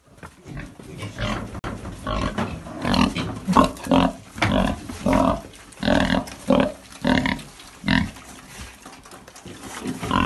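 Piglets grunting in a concrete pen: a quick run of short calls, nearly two a second, starting about a second in and easing off near the end.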